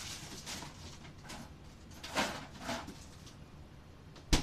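Food packages and bins being shifted around inside an open refrigerator: a few soft rustling, scraping sounds, then one sharp knock near the end.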